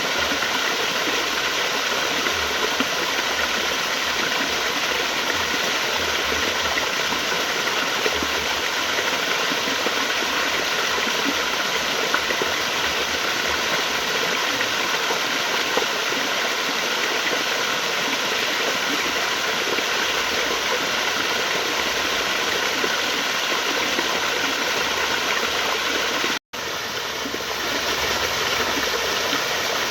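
Flowing water rushing steadily. It cuts out for an instant about 26 seconds in, then comes back a little softer and swells back up within a second or two.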